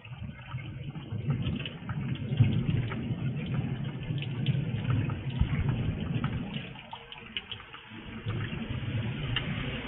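Steady rain with many close drips ticking near the microphone, under a low rumble that swells over several seconds, eases about seven seconds in and builds again near the end.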